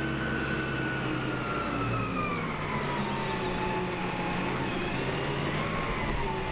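Heavy-duty container forklift's diesel engine running as the machine drives up, with a whine that falls slowly in pitch.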